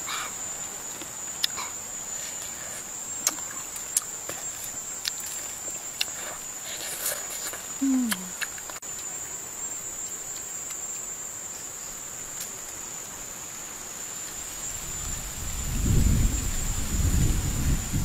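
Steady high-pitched insect drone over a faint outdoor hiss, with scattered small clicks. Near the end a louder low rumble comes in.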